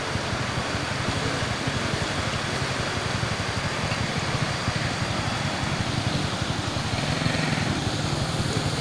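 Motorcycle engines running as the bikes are pushed through a shallow, fast-flowing river ford, over the steady rush of water over rocks.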